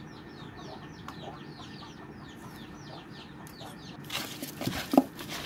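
Birds chirping, a rapid run of short high descending calls, several a second. About four seconds in this gives way to wet rubbing and squelching as stinging catfish are scrubbed with salt in a plastic tub, with a sharp knock about a second later.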